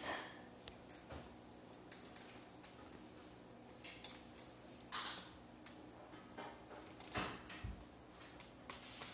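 Faint, scattered taps and scrapes of a small spoon against a plastic bowl on a tabletop, with a few louder knocks and bumps between them.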